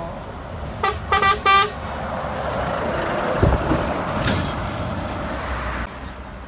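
Truck horn sounded in three short blasts, then the loud engine and tyre noise of the tanker lorry passing close by, which stops abruptly near the end.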